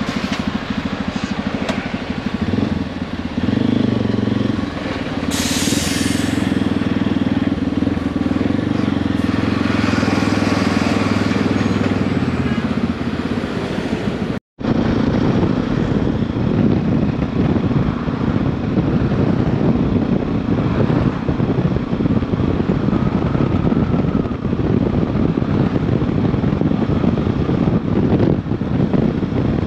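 Motorcycle engine running steadily on the road, with wind and road noise. The sound drops out completely for a moment about halfway through, and afterwards the noise is rougher.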